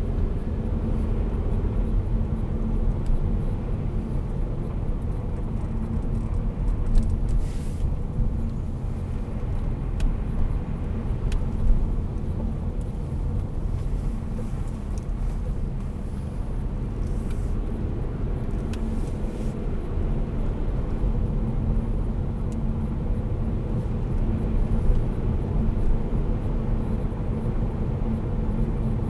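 Saab 9-5 2.3t's turbocharged four-cylinder engine and tyre noise heard from inside the cabin: a steady low rumble with a faint hum as the car speeds up from about 15 to 50 km/h on wet roads.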